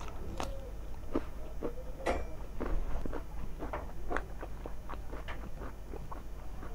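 Close-miked eating sounds: chewing a mouthful of rice and chicken curry, with many small, irregular wet clicks and smacks of the mouth.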